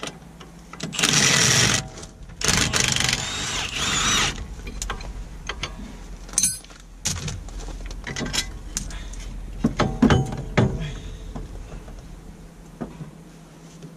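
Cordless impact wrench hammering at bolts on a car's front hub and suspension in two bursts about a second in, the second with a wavering whine, followed by scattered metallic knocks and clinks as the parts are worked loose.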